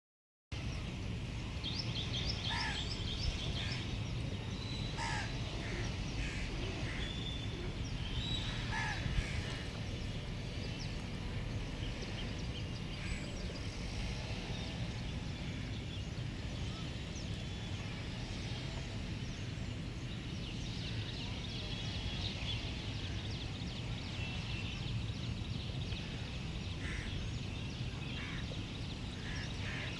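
Birds calling: a few short downward-sliding calls in the first nine seconds and scattered high chirps, over a steady low background rumble.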